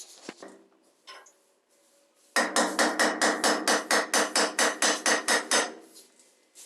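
A hammer striking metal in a fast, even run of about six blows a second, each with a ringing tone, lasting about three seconds from a little over two seconds in; a couple of faint knocks come before it.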